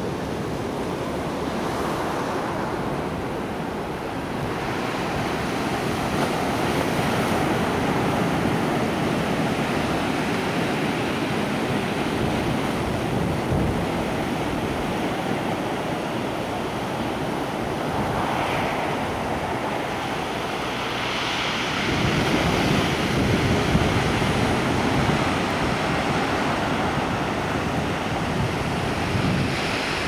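Ocean surf breaking and washing against a rocky shore, a continuous rushing wash with wind buffeting the microphone. It grows louder about two-thirds of the way through.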